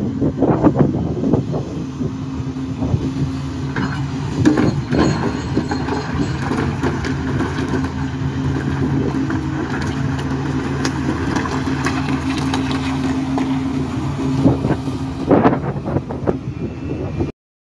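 Long-reach hydraulic excavator's diesel engine running at a steady hum, with rocks knocking and grinding as the bucket handles boulders. The sharpest knocks come about half a second in, around four and a half seconds in, and just before the end. The sound cuts off suddenly near the end.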